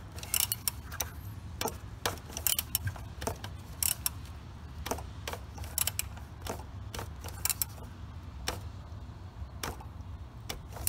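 Ratchet clicking as the plastic oil filter housing cap on a 3.6L Pentastar V6 is tightened a final quarter turn: a run of sharp, irregular clicks, about two or three a second.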